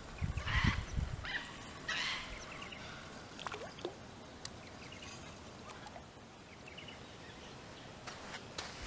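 Small carp splashing at the water's surface as it is reeled in on a fishing line, a few splashes in the first couple of seconds, then quieter outdoor background with a couple of faint falling whistles.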